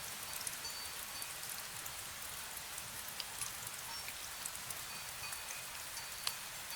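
Fine drizzle falling steadily, an even hiss dotted with sharp drop ticks. Now and then a faint, short high ringing tone from a wind chime.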